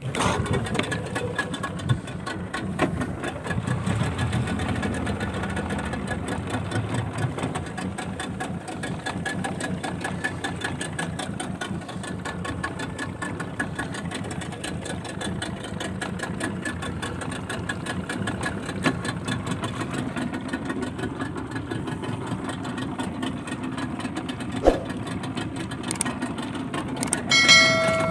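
Small engine on a fishing boat running steadily with a fast, even firing beat. There is one sharp knock about 25 seconds in, and a brief high tone near the end.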